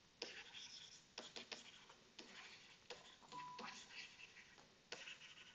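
Near silence, broken by faint, scattered taps and scratches of a stylus writing on a tablet screen.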